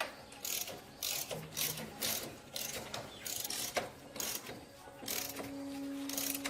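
Ratchet wrench clicking in short, repeated strokes at roughly two a second, with a faint steady hum starting near the end.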